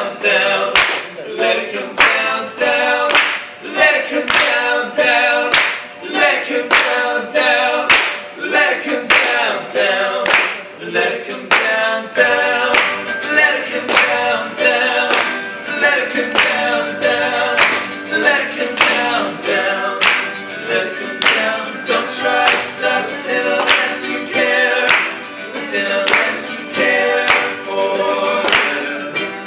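Live acoustic band playing, with acoustic guitar, mandolin and keyboard under group singing. A steady percussive beat of clapping or hand percussion runs at about two hits a second.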